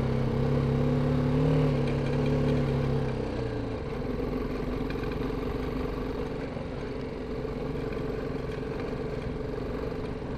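BMW G 310 GS single-cylinder motorcycle engine running under way, pulling steadily with a slight rise in pitch, then easing off about three and a half seconds in and carrying on at a lower, steady note.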